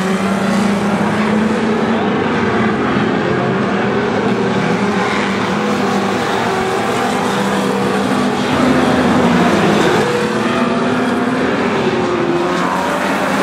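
Several banger racing cars' engines running hard at once, with engine notes rising and falling as the cars accelerate and lift around the track.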